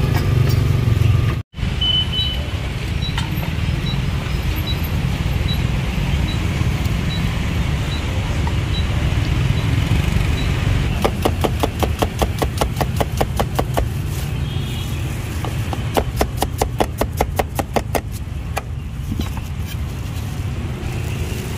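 Cleaver chopping vegetables on a thick wooden chopping block: two runs of rapid, even strokes, about seven a second, starting about eleven seconds in and again about sixteen seconds in. Under it, a steady low rumble of street traffic.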